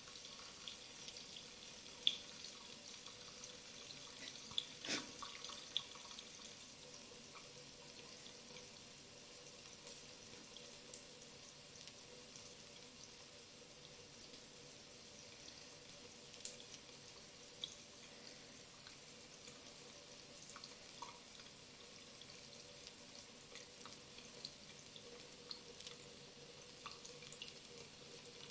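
Tap water running steadily into a sink, with small splashes and ticks scattered through it and a sharper click about two seconds in and again about five seconds in.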